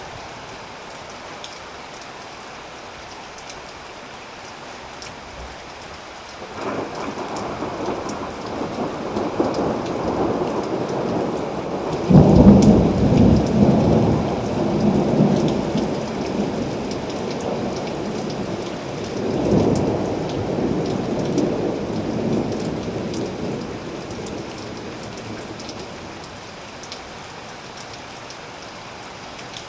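Steady rain falling, with a long roll of thunder that builds about six seconds in, is loudest about halfway through, swells again a little later and fades back to rain alone near the end.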